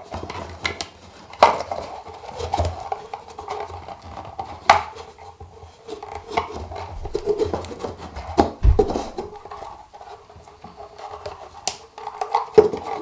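Hand handling noise from a paper cup with a balloon stretched over it: irregular taps, clicks and rubbing as the balloon is knotted and fitted.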